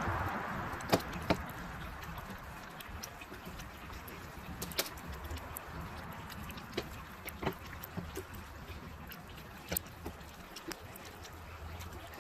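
Scattered sharp clicks and taps of a long knife and glass being worked at a window sash while cutting out a double-pane glass unit with a failed seal, two louder knocks about a second in. A hiss dies away in the first second.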